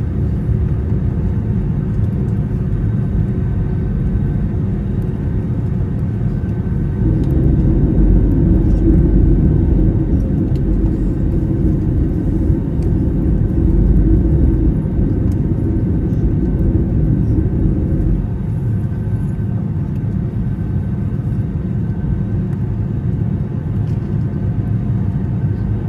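Steady low rumble of an Airbus A320neo heard from inside the passenger cabin around landing, swelling louder from about seven seconds in and easing off again at about eighteen seconds.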